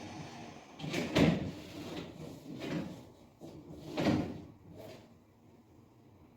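Several knocks and scrapes of objects being handled, the loudest about a second in and another about four seconds in.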